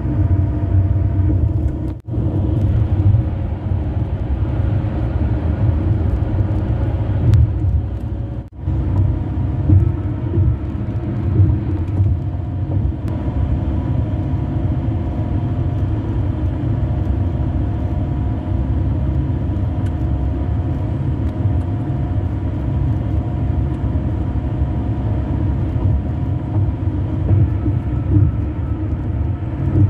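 Car tyres running at highway speed on grooved concrete pavement, heard from inside the cabin: a steady low rumble with a faint hum above it. The sound cuts out briefly twice, about 2 and 8.5 seconds in.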